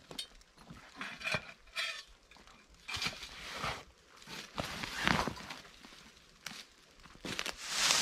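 Rustling and crunching in dry leaf litter and brush as gear is handled and dead branches are pulled, in a series of separate bursts with some sharper knocks and clinks. Near the end a louder, longer rustle of dry bracken and twigs as a dead branch is dragged through it.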